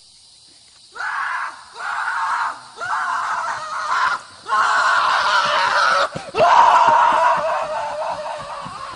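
Screaming in five long, rough bursts of a second or more each, the last one fading away.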